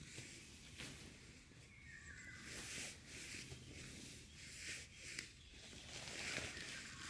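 Irregular rustling and crunching, a burst every half second to a second, with a short faint whistle-like note about two seconds in.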